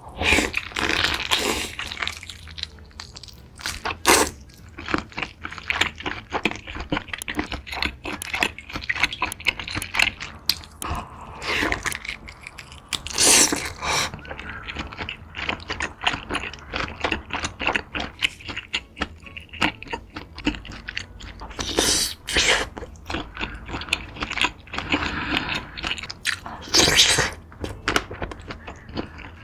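Close-miked eating of a seafood boil: wet chewing and crunching, dense with short sharp clicks and crackles and a few louder cracks along the way.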